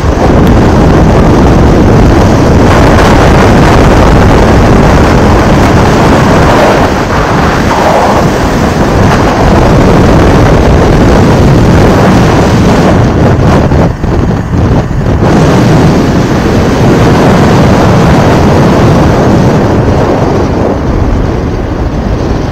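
Loud wind rumble on the microphone of a motorcycle-mounted camera while riding a gravel track, with a Honda XL600V Transalp's V-twin engine running underneath.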